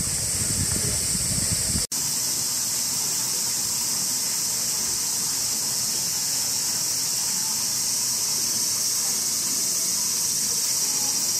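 Steady high-pitched buzzing of cicadas, with a low rumble under it for the first two seconds and a brief break in the sound about two seconds in.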